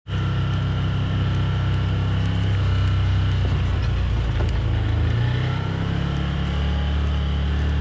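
Side-by-side UTV engine running steadily as the machine drives along, heard from on board, with a slight shift in engine pitch past the middle.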